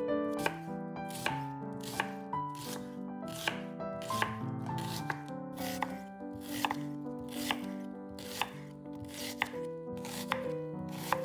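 A kitchen knife cutting vegetables against a cutting board in slow, even strokes, a little more than one a second. Soft piano background music plays underneath.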